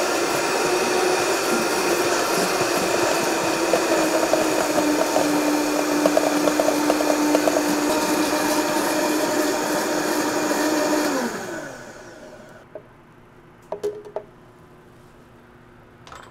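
High-speed countertop blender running steadily, puréeing a thick yogurt-and-herb dressing while a tamper is worked through the lid. The motor winds down and stops about eleven seconds in, followed by a couple of light knocks.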